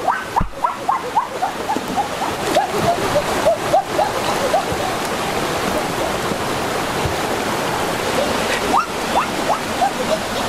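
Fast-flowing muddy stream rushing steadily. A run of short, quick chirping calls sounds over it in the first few seconds and again briefly near the end.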